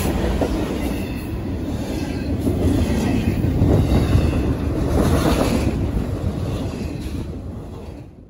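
Full-size train's cars rolling past with a steady rumble and clatter of wheels on rail, fading away near the end.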